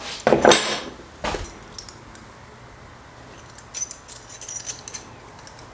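Small metal parts and tools clattering and jingling as they are handled on a workbench. A loud clatter with a short metallic ring comes just after the start and a single knock follows about a second later. Lighter jingling clicks come near the end.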